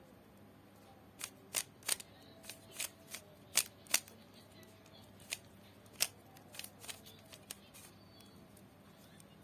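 Stickerless plastic 3x3 Rubik's cube being turned by hand: a run of sharp, irregular clicks and clacks as the layers are twisted. They are loudest a few seconds in and thin out, stopping a couple of seconds before the end.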